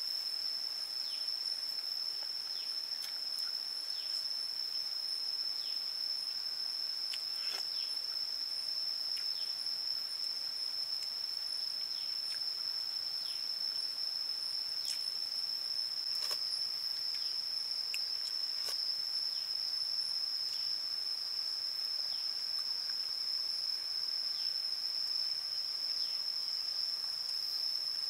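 Insects in the forest holding one steady, high-pitched drone, with scattered short clicks and brief chirps over it.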